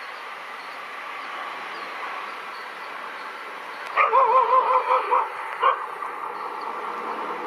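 A dog whining with a wavering pitch for about a second, then a short yelp, over the steady rumble of an approaching WAG-5 electric locomotive and its train. The whine starts suddenly about four seconds in and is the loudest sound.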